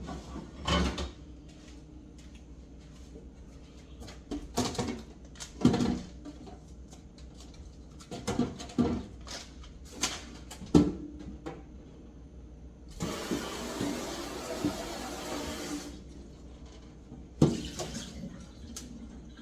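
Kitchen clatter as food containers and dishes are handled and set down, a string of separate knocks and bumps. About two-thirds of the way through, water runs for about three seconds, as from a sink tap or liquid being poured out.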